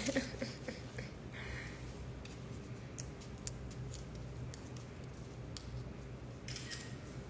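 Faint, scattered crackles and small clicks of a dry leaf wrap being handled and pulled apart in the fingers, over a low steady hum.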